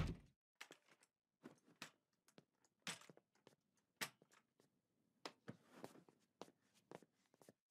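A short loud thump right at the start, then faint, irregular knocks and scuffs of an old man's walking frame being lifted and set down as he shuffles across the floor.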